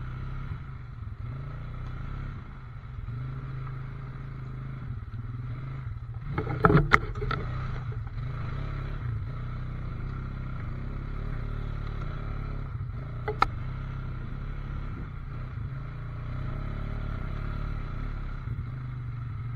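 ATV engines running steadily at trail pace. Sharp knocks come twice, a loud cluster about a third of the way in and a single one past halfway.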